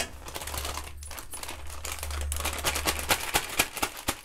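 Plastic flour packet crinkling and rustling in a run of rapid, irregular crackles as it is squeezed and shaken to pour gram flour into an aluminium kadai. A low steady hum runs underneath.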